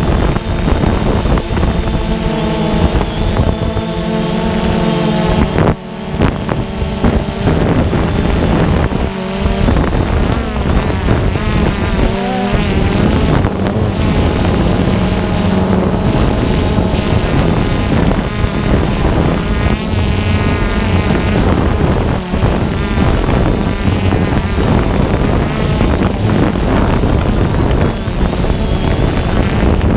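DJI Phantom 2 quadcopter's electric motors and propellers whining in flight, heard close up from the camera it carries. Several pitches waver and glide up and down as the motor speeds change while it manoeuvres, with wind buffeting the microphone.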